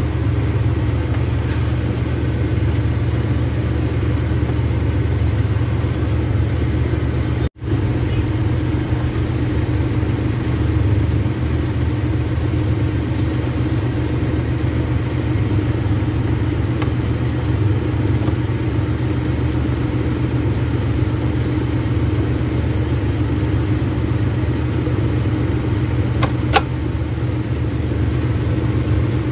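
Steady low hum of a running motor. It drops out briefly about seven seconds in, and there is a single click near the end.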